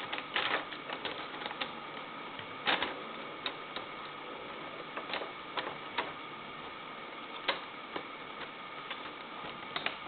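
Irregular clicks and light knocks of plastic Lego Technic parts being handled and fitted together, over a steady background hiss.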